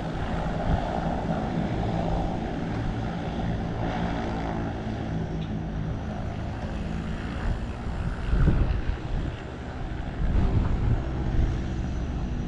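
Seaplane's propeller engines running: a steady multi-toned hum over a continuous low rumble. Louder surges of rumble come at about eight and a half and ten and a half seconds in.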